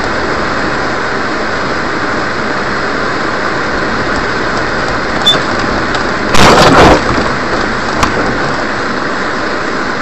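Steady road and engine noise recorded by a car's dash camera, with a loud, sudden collision impact lasting under a second about six seconds in.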